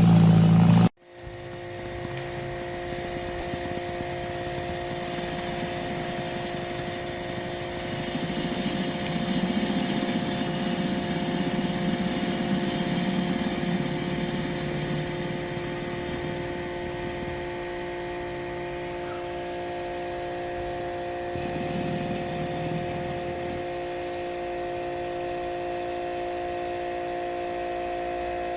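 Electric pressure washer running steadily with a whine of several tones, its surface cleaner spraying onto concrete, the spray noise swelling and easing as it is moved. A louder low sound cuts off abruptly about a second in.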